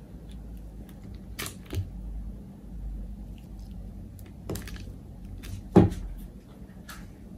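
A few light knocks and taps from a silicone spatula and soap-making things being handled on a tabletop, the loudest a single thump about six seconds in.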